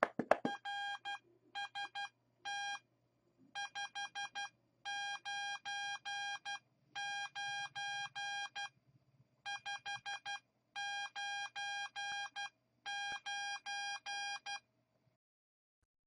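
Morse code sidetone sent through an electronic keyer: one steady beeping tone keyed on and off in dots and dashes, in groups with short gaps, spelling out "RST 599" twice. It stops about a second before the end.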